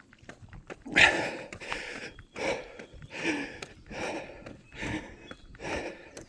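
Heavy, rhythmic breathing of a runner labouring uphill: hard breaths about every 0.8 seconds, the loudest about a second in.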